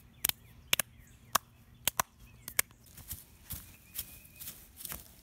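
Children clapping their hands, sharp slaps in an uneven rhythm, then from about three seconds in softer, duller thuds of bare feet stomping on grass.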